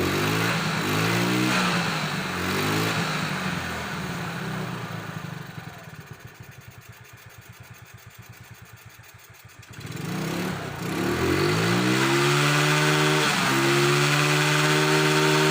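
Yamaha Mio Smile scooter engine revved in several short blips. It drops to a quieter low idle about a third of the way in, then is revved up again and held at a steady higher speed, with one brief dip near the end.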